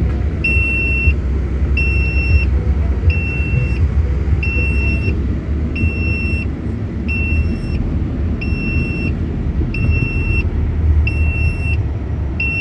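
UD Quester truck's cab warning buzzer beeping high-pitched about once a second over the low, steady running of the diesel engine. The driver ties the alarm to the seatbelt not being worn.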